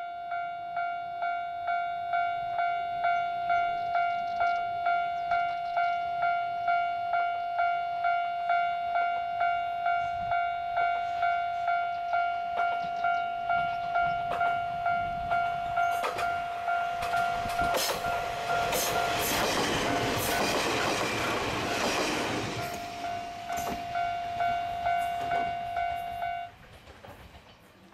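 A level-crossing warning bell rings as a steady pulsing tone about twice a second. Midway, a KiHa 28 and KiHa 52 diesel railcar train runs close past, with engine noise and wheels clicking over the rail joints. Shortly after the train has gone, the bell stops abruptly.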